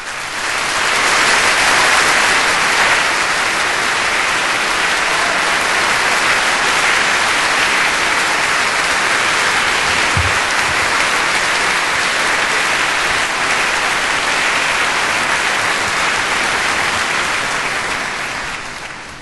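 Audience applauding, building quickly at the start, holding steady, and dying away near the end.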